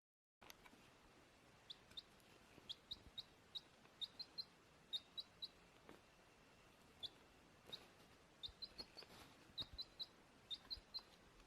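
Rapid series of short, high-pitched chirps, often in quick runs of two or three, from a small bird or chick. The sound begins abruptly just under half a second in.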